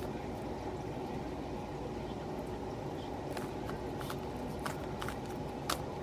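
Scattered clicks of a 3x3 Rubik's cube's layers being turned by hand, with a few sharper clicks in the second half, over a steady low hiss.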